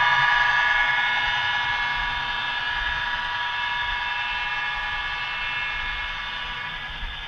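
HO scale model diesel freight train running past on the layout: a steady whine that slowly fades as the train moves away.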